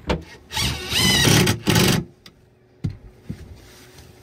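A plywood panel being shoved into place in a storage compartment, scraping loudly against the frame for about a second and a half with a wavering squeal, plus a couple of knocks.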